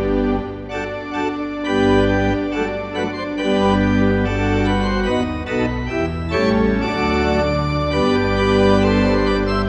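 Content Celeste 340R digital church organ playing a piece in held full chords over deep pedal bass notes, the chords changing every second or so.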